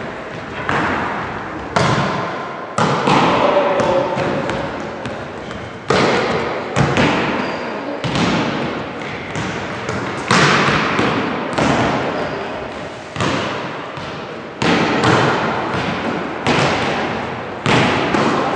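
Volleyballs being spiked and slapping off the sports-hall floor: a run of sharp smacks, about one a second, each echoing in the hall.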